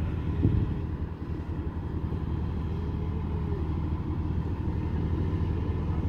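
Diesel engine of heavy pipeline equipment running steadily at a constant low pitch, with one short knock about half a second in.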